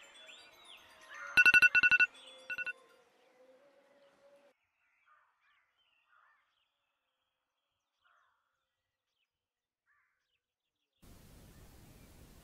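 Smartphone alarm beeping in quick, shrill pulses, a loud run of beeps about one and a half seconds in that stops abruptly about a second later.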